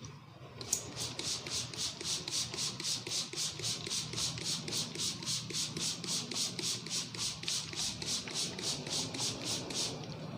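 Hands rubbing briskly back and forth over hair and scalp in a head massage. It is a scratchy friction hiss in an even rhythm of about four strokes a second, starting just under a second in and stopping shortly before the end.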